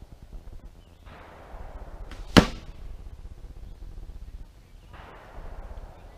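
An arrow strikes the target with a single sharp smack about two and a half seconds in.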